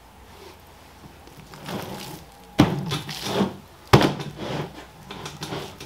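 A large raw boneless beef chuck being turned over and handled on a plastic cutting board, with two sharp thunks about two and a half and four seconds in and softer handling and knife-cutting sounds between them.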